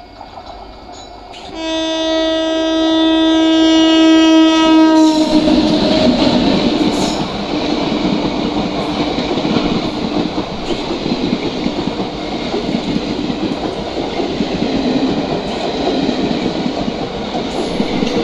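An Indian Railways electric locomotive's horn sounds one long blast of about three and a half seconds as the train approaches. Then the train's coaches rumble and clatter past close by at speed.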